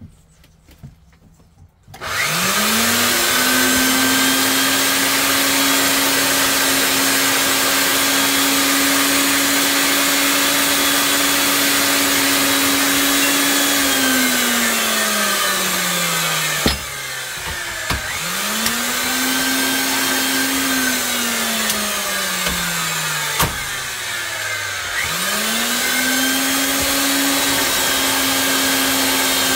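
Ridgid 300 pipe threading machine's electric motor spinning up and running with a steady whine, then slowing with a falling pitch about 14 seconds in. It starts again twice, the second run also slowing down, with a sharp knock between each run.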